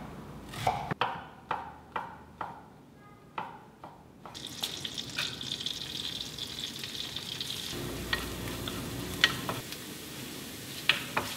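Chef's knife cutting a shallot on a wooden cutting board, about two cuts a second. From about four seconds in, a steady sizzle as diced shallot and then mushrooms fry in butter in a non-stick pan, with a few sharp clicks.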